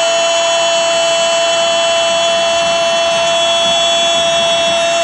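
Football stadium crowd celebrating a goal, under a loud, steady drone of several held pitches that does not change.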